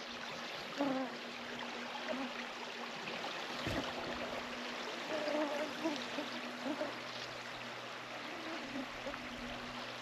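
River water running steadily, with a few faint short calls and one soft knock above it.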